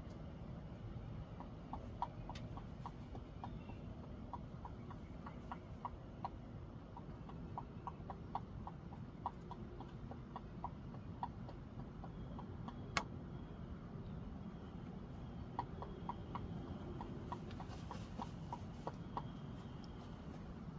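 Chickens clucking softly in runs of short, clipped notes, about two or three a second, over a steady low rumble. One sharp click stands out about thirteen seconds in.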